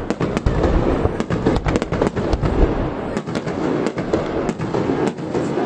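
Fireworks display going off: a dense run of sharp cracks and bangs, several a second, over a continuous low rumble.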